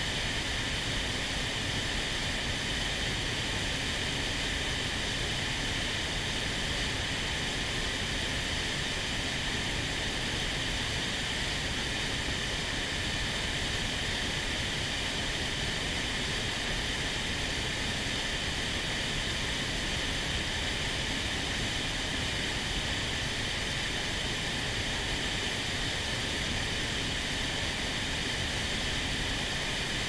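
Mountain river in spate, fast white water rushing in a steady, even roar.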